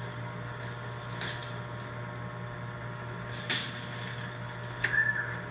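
Steady low hum with a few sharp knocks, the loudest about three and a half seconds in.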